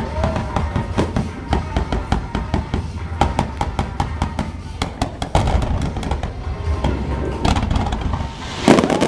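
Fireworks display: many sharp bangs and crackles from bursting shells over a steady low rumble, with a louder burst near the end. Music plays underneath.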